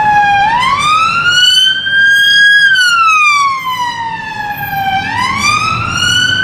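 UK police car's siren wailing: one tone sliding slowly down, then up, then down and up again, each sweep taking two to three seconds, over a low rumble.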